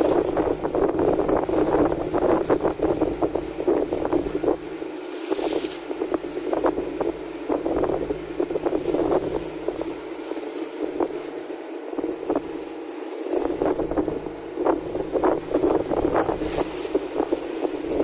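Sea water rushing and splashing against the hull of a boat under way in choppy waves, with wind buffeting the microphone.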